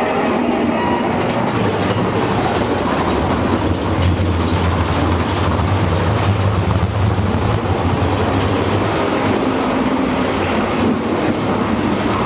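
Steady rumbling of a vehicle rolling along rails, with a low drone that grows stronger in the middle and eases off again.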